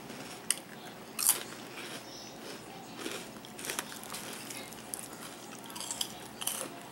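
Crunching and chewing of Flamin' Hot Habanero Cheetos, with two sharp crunches about half a second and just over a second in, then softer, scattered chewing crunches.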